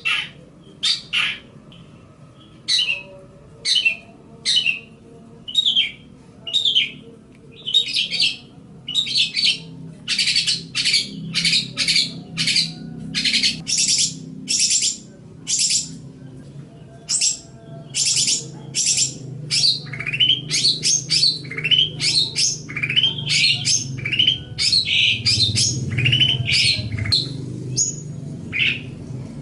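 Long-tailed shrike (cendet) singing: a long string of short, harsh chirping notes, spaced about a second apart at first and coming in quick succession from about ten seconds in, over a faint low hum.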